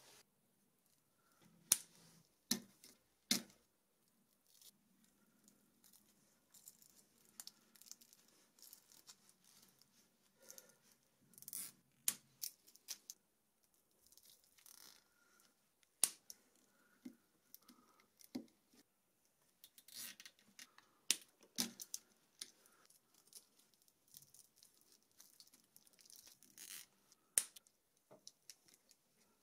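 Faint handling noises: scattered sharp clicks and soft rustling as gloved hands plug wire connectors into a mini CNC machine and handle its braided cable sleeving.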